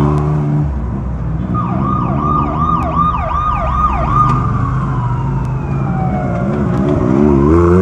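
Off-road race vehicles' engines running as they roll past at parade pace, with a siren yelping rapidly for about two seconds and then a long falling tone. Near the end a close engine revs, wavering up and down, and the sound gets louder.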